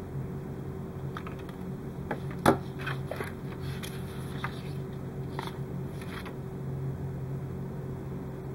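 Light clicks and taps of hands handling small tools, wires and plastic model parts, with one sharp click about two and a half seconds in, over a steady low hum.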